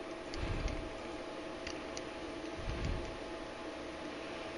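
Light metallic clicks and scrapes of a 1911 pistol's steel slide and frame being handled during reassembly, with two soft bumps about half a second and nearly three seconds in.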